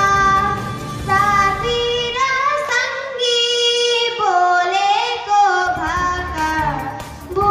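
A high voice singing a melodic song for a stage dance, with instrumental backing. The low backing drops out for a few seconds in the middle while the voice carries on alone.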